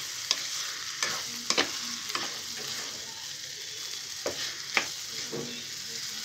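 Instant noodles with scrambled egg and peas frying in a pan with a steady sizzle, as a wooden spatula stirs them, knocking and scraping against the pan in irregular clicks about once a second.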